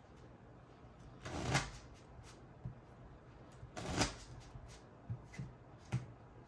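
A single deck of playing cards being riffle-shuffled twice, each riffle a short rustle that builds to a sharp snap, with light clicks and taps of the cards between.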